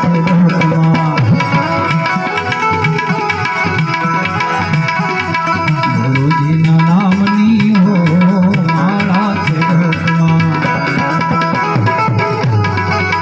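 Instrumental bhajan music: tabla playing a steady rhythm under a sustained harmonium melody.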